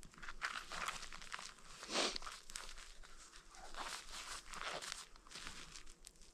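Irregular crunching and crinkling, a quick run of short crackly strokes, the loudest about two seconds in.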